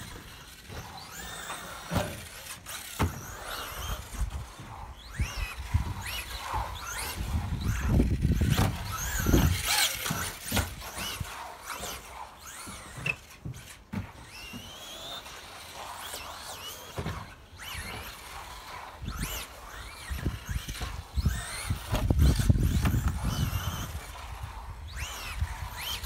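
XB2 1/10-scale electric RC buggy lapping the track: its motor whine rises and falls in pitch as it accelerates and brakes, with tyre squeal in the corners. There are two stretches of low rumble, about a third of the way in and near the end.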